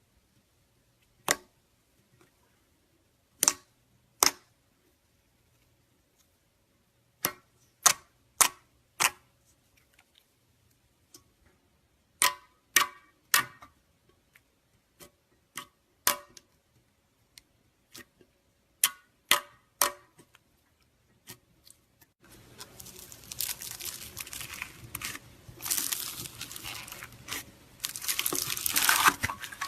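Butter slime being handled: sharp pops and clicks at irregular intervals, then, about two-thirds of the way through, a continuous crackly squishing.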